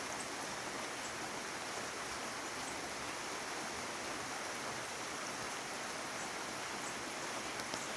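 Light rain falling steadily: an even hiss with a few faint scattered drop ticks.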